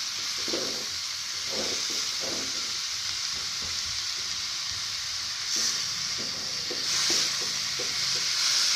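Shredded young papaya sizzling in a hot wok with a steady hiss while a wooden spatula stirs it, scraping against the pan in short, repeated strokes.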